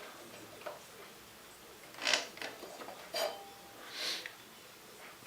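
A brake pad being worked out of a motorcycle's front brake caliper by hand: a few short metallic scrapes and clinks, the loudest about two seconds in.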